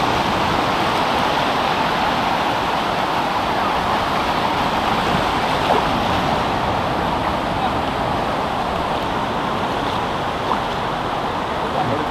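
Sea surf washing on the beach: a steady roar of breaking waves.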